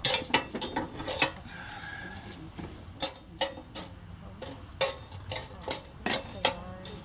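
Metal tongs and charcoal briquettes clinking against cast-iron Dutch ovens and their lids as hot coals are moved onto a lid: about a dozen sharp clinks with short ringing, spread unevenly.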